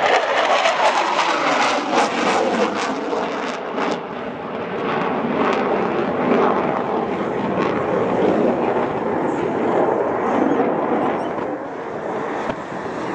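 Jet noise from a Blue Angels F/A-18 Hornet's twin turbofans as it climbs away after a pass. It crackles with a falling pitch over the first few seconds, then settles into a steady rush.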